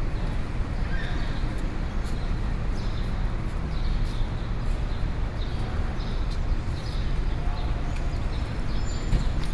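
Morning city street ambience: a steady low rumble of distant traffic, with scattered light taps and knocks and brief high chirps.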